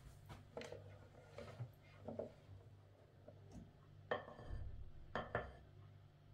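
Light knocks and clinks of a measuring cup against a ceramic mixing bowl as waffle batter is scooped, the loudest about four and five seconds in, over a low steady hum.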